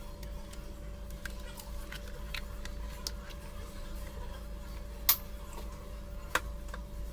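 Scattered light clicks and taps over a steady low hum, with two sharper clicks about five and six and a half seconds in.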